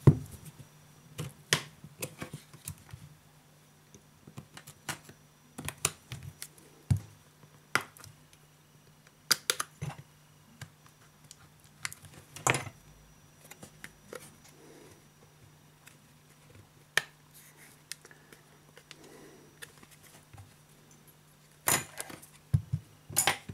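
Scattered sharp clicks and taps of a metal pry tool against the aluminium back cover of a Huawei Ascend Mate 7 smartphone as the cover is prised off, with a cluster of clicks near the end. A faint steady low hum runs underneath.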